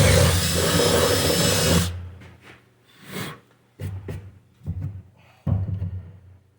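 Power drill boring a hole through a workbench with a big drill bit, running steadily and then stopping abruptly about two seconds in. A few knocks and thumps follow.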